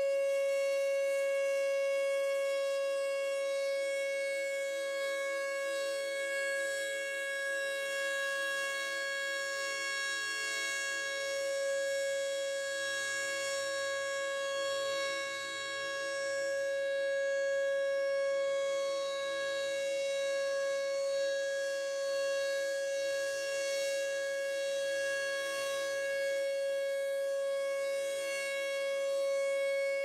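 Federal Sign & Signal Thunderbolt 1000 siren sounding its alert signal, one steady tone. The sound swells and fades as the rotating horn turns, faintest about halfway through when the horn points away.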